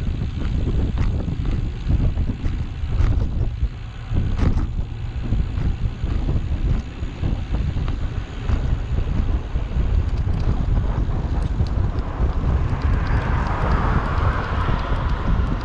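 Wind buffeting the microphone on a moving bicycle: a steady, gusty low rumble with scattered small clicks and knocks, and a hiss that swells near the end.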